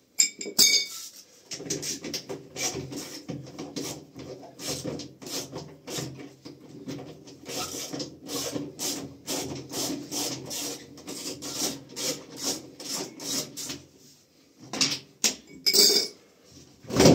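Repeated scraping, rasping strokes, a few a second, as a washing machine is worked on by hand during disassembly, with a sharp knock just after the start and a few louder knocks near the end.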